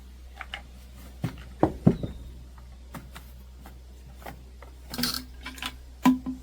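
A string of scattered knocks and clatters from objects being handled, two of them sharper and louder a little before two seconds in, with a brief scraping hiss about five seconds in.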